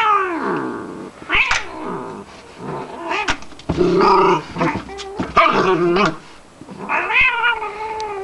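Cat yowling during rough play with a dog: several long, wavering, drawn-out yowls, with lower growls and a few sharp clicks of scuffling in between.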